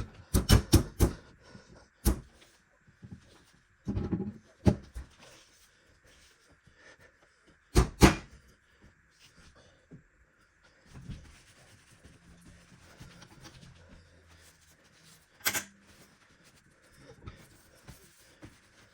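Knocks and clicks of parts being handled while the motor is refitted into a KitchenAid Artisan stand mixer's housing. There is a quick run of sharp knocks at the start, then scattered single knocks with faint handling noise between them. The loudest knock comes about eight seconds in.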